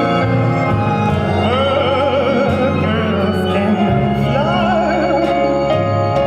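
Recorded music for a dance routine: a singer holds long notes with heavy vibrato in two phrases, over sustained chords and a steady bass line.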